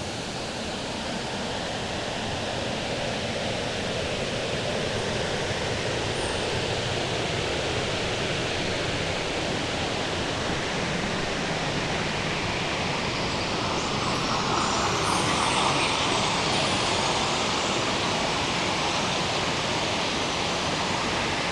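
Steady rush of water pouring over a river waterfall in heavy flow, swelling a little louder about two-thirds of the way through.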